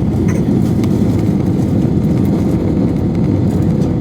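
Steady low roar of a jet airliner heard from inside the passenger cabin: engine and airflow noise, with a few faint clicks.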